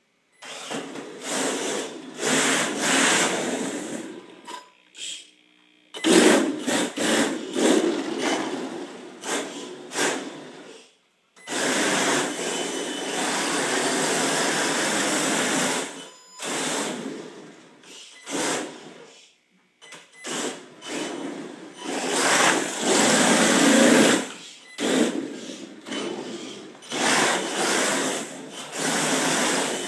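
Brushless electric motor and drivetrain of an HPI Pro D RC drift car whirring under throttle, in repeated bursts a few seconds long with short pauses in between.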